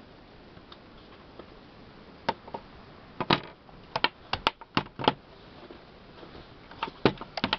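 A series of sharp clicks and knocks, irregularly spaced, about ten in all, bunched in the middle and again near the end: hard objects being handled and set down.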